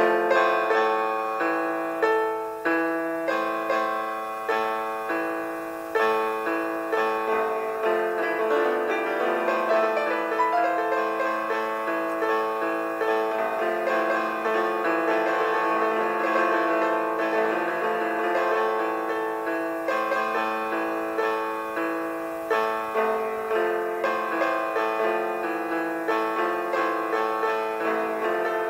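Sampled piano of the buttonbass.com online Player Piano playing a typed-in note sequence: dense clusters of many notes struck together, with new attacks several times a second.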